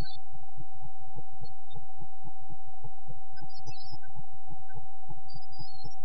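A steady electronic whine held at one pitch, with irregular low thumps underneath and a few short clusters of high chirps.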